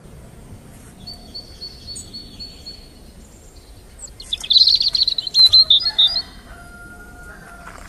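Birds singing: a run of high repeated chirps, then a louder rapid chattering song about four seconds in, and a lower steady whistle near the end.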